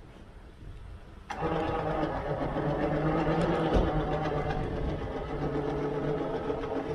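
Recovery truck's winch starting up about a second in and running steadily, hauling a car with two flat tyres up onto the bed, then stopping near the end. The winch is working near its limit: it only just manages the pull.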